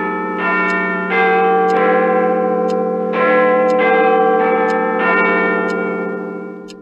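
Big Ben's clock-tower bells chiming, a tune of overlapping strokes at different pitches, roughly one a second, each ringing on under the next; the ringing dies away near the end.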